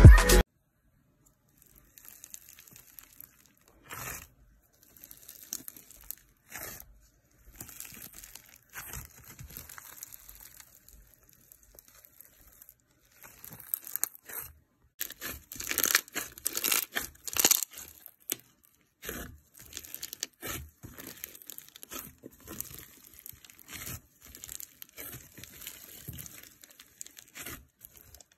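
Gloved hand squishing and pressing a tub of thick slime packed with small beads: irregular sticky crackles, clicks and crunchy pops, busiest about halfway through.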